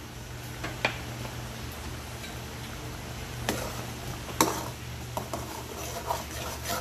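A metal ladle stirring a wok of boiling pork broth, with a few sharp knocks of the ladle against the pan, the loudest about three and a half and four and a half seconds in. A steady low hum runs underneath.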